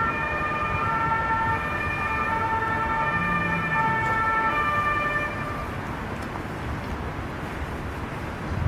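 A siren-like sound of several held, steady tones that shift in pitch, sounding for about the first six seconds and then stopping, over the constant background noise of a funfair.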